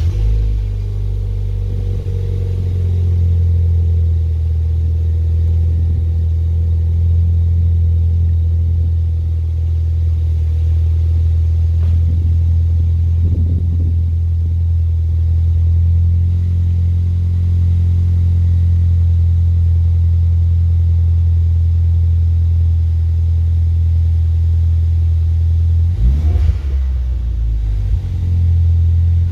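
2018 Ford Fiesta ST's turbocharged engine idling through a MAP cat-back exhaust, a steady deep drone at a raised cold fast idle of about 1200 rpm because the engine is not yet warm. Near the end the pitch rises and falls briefly a couple of times, like short blips of the throttle.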